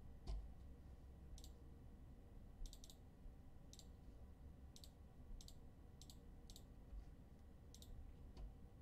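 Near silence with faint, scattered short clicks, about ten of them at irregular intervals.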